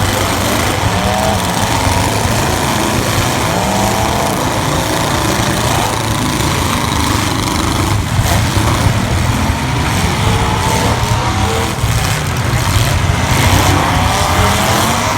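Several demolition derby cars' V8 engines running loud together, revving up and down over a steady low rumble.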